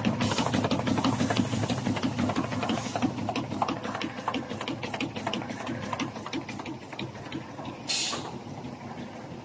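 CNC knife pleating machine running, its pleating knife clacking in a fast, steady rhythm of several strokes a second, growing fainter. A short hiss near the end.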